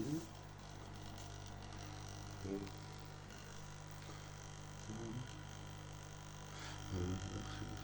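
Steady electrical mains hum, broken by short pitched buzzes about every two to two and a half seconds.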